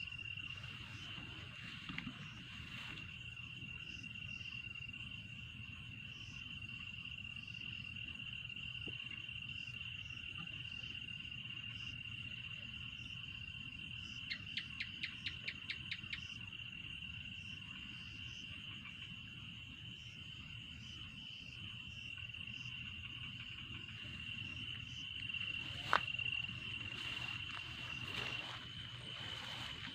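An insect trilling one steady high-pitched note without a break. About halfway through, a quick run of about ten clicks sounds over it, and near the end there is one sharp knock.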